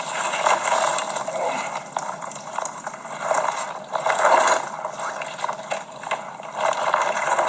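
Rustling and light clicking and knocking as a mesh keep net is handled in long grass, with gusts of wind on the microphone swelling and fading. It is heard as played back through a mobile phone's small speaker, thin and without bass.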